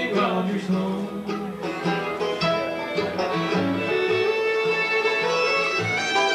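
Bluegrass band playing an instrumental passage, with banjo and guitar picking.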